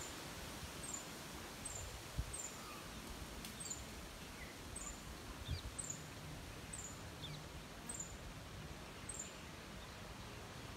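A bird repeating a short, very high two-note chirp about once a second, with a few fainter lower chirps, over a low outdoor rumble and a couple of soft low bumps.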